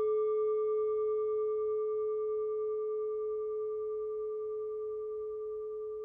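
A singing bowl ringing after a single strike: one steady tone with a few higher overtones, slowly fading.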